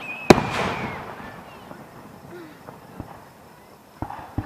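Aerial fireworks bursting: one loud boom about a third of a second in that echoes away over about a second, a faint crack partway through, and two more bangs close together near the end.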